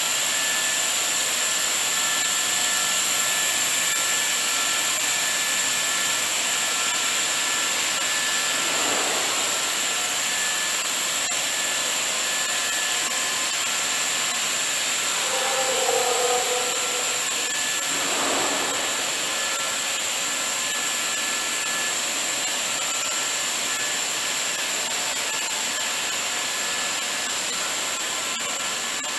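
HDPE pipe extrusion line running: a steady hissing machine noise with a constant high whine. A brief louder sound rises about halfway through.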